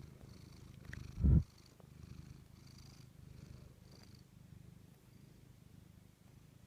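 Domestic cat purring steadily up close, with one brief loud low sound about a second in.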